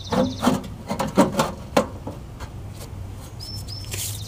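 Mounting bolts being fitted back into a galvanized sheet-metal blower housing by hand: a run of small metallic knocks, clicks and scrapes in the first two seconds, then quieter handling.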